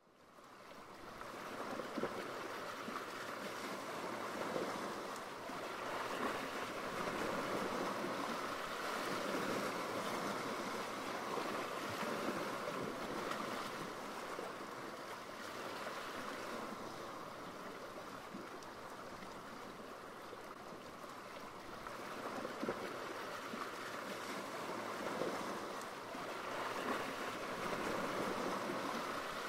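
Ocean waves and rushing sea water, a steady wash that swells and eases in slow surges, fading in at the start.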